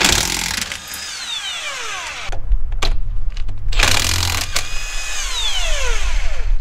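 Cordless impact wrench zipping lug nuts off a wheel, in two short bursts about four seconds apart. After each burst the motor winds down with a falling whine.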